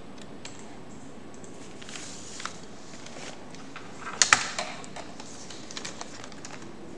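A few computer keyboard keystrokes and clicks over a steady hiss, with the loudest cluster of clicks about four seconds in.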